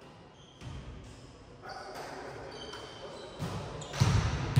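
Volleyball game sounds in a sports hall: sneakers squeaking briefly on the court floor and a ball thudding, with a louder thud about four seconds in.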